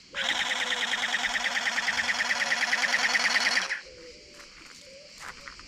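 WaterBoy M416 toy water gun firing its jet in automatic: a motor buzz with fast, regular pulsing, about ten a second, for roughly three and a half seconds, then stopping.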